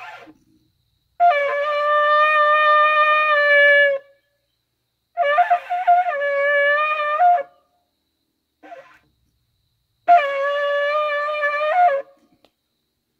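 A long spiral-horned shofar blown in three sustained blasts of about two to three seconds each, separated by pauses. The second and third blasts jump up in pitch at the end, and a short faint puff comes between them.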